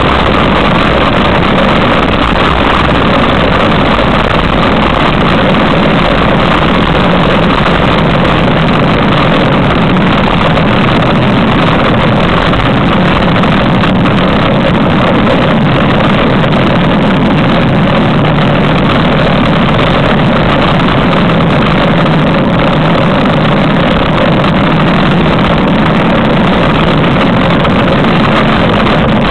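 Loud, steady wind rushing over the camera's microphone as a bicycle speeds downhill, an unbroken roar with no let-up.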